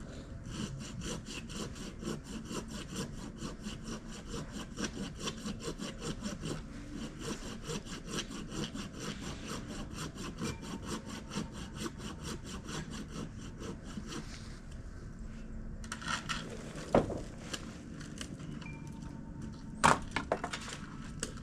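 Hand saw cutting through wood with quick, regular back-and-forth strokes that stop partway through, followed by a few sharp knocks or cracks near the end.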